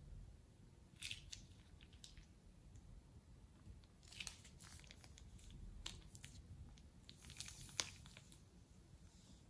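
Faint crinkling and wet crackling of slime being squeezed out of a plastic piping bag. The crackles come in short clusters about a second in, again around four to six seconds in, and near the end, with one sharper tick just before the end.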